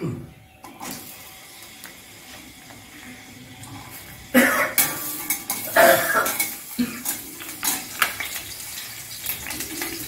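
Long stainless-steel spatula stirring whole garlic cloves in hot oil in a stainless-steel kadai, scraping and clinking against the pan over a light sizzle. The stirring gets loud and clattery from about four seconds in.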